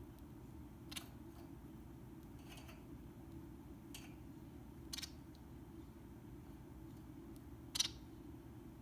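Bengalese finch giving about five short, sharp calls spaced a second or more apart, the loudest near the end, over a steady low hum.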